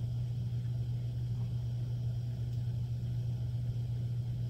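A steady low hum with a faint even hiss over it, unchanging throughout.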